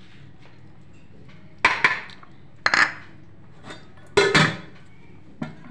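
Metal spoon knocking and scraping against cookware and dishes while curry is served: a few sharp clinks, some in quick pairs, the loudest about four seconds in.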